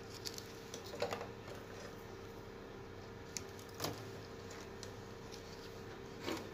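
A handful of faint, short clicks and light knocks, scattered and irregular, over a steady faint hum.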